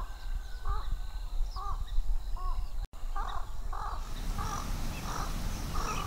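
Crows cawing, a run of short caws roughly one to two a second, over a low steady rumble. The sound cuts out for an instant about three seconds in, and the cawing carries on after it.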